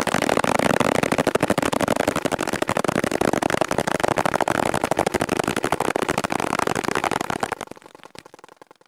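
Three paintball markers firing together in ramp mode, each at about 20 balls a second: a dense, unbroken rattle of shots mixed with paintballs smacking into a paperback book. The fire thins out and stops near the end.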